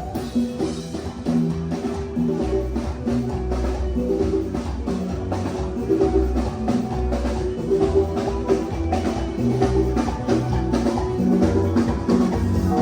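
Live band playing an upbeat groove: drum kit with a steady, busy beat under a bass line and sustained keyboard or guitar notes.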